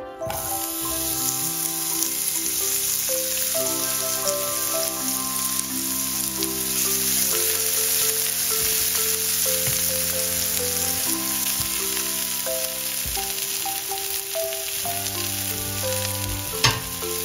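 Chopped onion sizzling as it fries in hot oil in a nonstick frying pan, stirred with a spatula; the sizzle starts abruptly as the onion goes in. A single sharp knock near the end.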